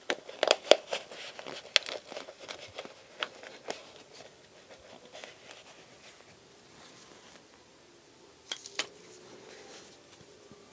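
Thin clear plastic 32-ounce cup being handled and slid down over a stem: a quick run of clicks and crinkles in the first few seconds, then two more clicks a little past eight seconds.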